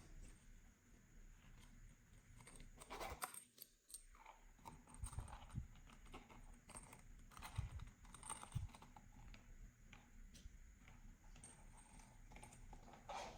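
Slime being squished and mixed by hand: faint, irregular sticky clicks and small pops, with a few soft low thuds.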